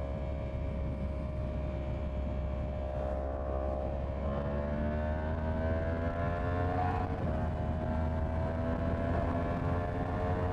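Yamaha MT-10's crossplane inline-four engine under way, running steadily, then rising in pitch as it accelerates for about three seconds before falling back about seven seconds in, over a low wind rush.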